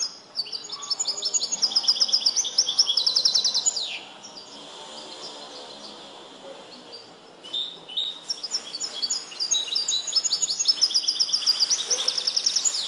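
Caged European goldfinch (chardonneret) trained in the limpio style, singing two long phrases of fast repeated high notes. The first phrase ends in a falling note, and there is a pause of about three seconds before the second.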